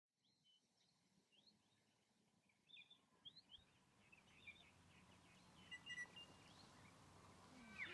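Faint birdsong over quiet open-field ambience: many short, quick chirps and twitters, with a brief clear whistled note about six seconds in.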